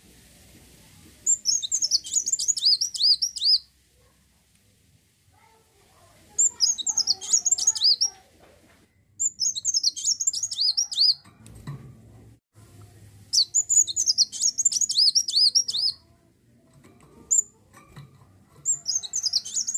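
Kolibri wulung (kowul) sunbird singing: five bursts of rapid, high, chattering swooping notes, each lasting two to three seconds, with short pauses between them.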